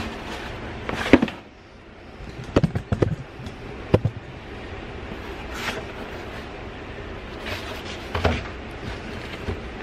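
Cardboard copy-paper box being handled: a few knocks and thumps as it is moved and set down on a concrete floor, then its lid lifted off, over a steady low background hum.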